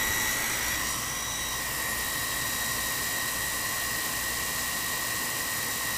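Small electric water pump running steadily: a constant motor whir with a steady high-pitched whine.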